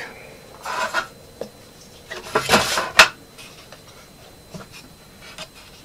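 The hard plastic flasher head of a Vexilar FLX28 portable ice-fishing unit being fitted back onto its case: scraping and rattling, then a sharp click about three seconds in, with a few faint ticks after.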